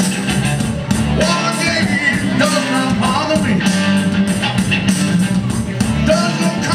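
Live rock music with a steady beat, a keytar played as the lead instrument.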